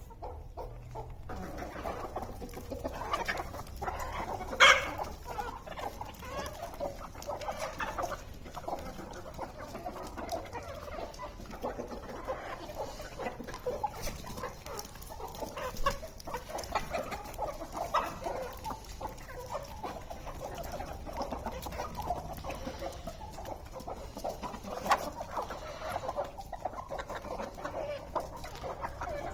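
A flock of backyard hens clucking continually in many short calls, with two louder sharp sounds, one about five seconds in and one near the end.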